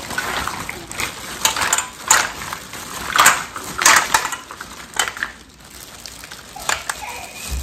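Black mussels in their shells clattering into a stainless steel pot as they are tipped out of a plastic bag, the shells knocking against each other and the metal, with the plastic bag crinkling. There are a handful of louder clatters in the first five seconds, then it goes quieter.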